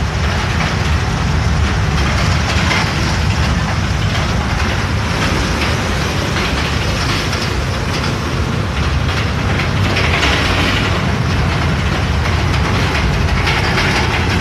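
Cabin noise of a city bus on the move in heavy rain: steady engine and road rumble under a dense hiss of rain, with two swells of hiss, one around the middle and one near the end.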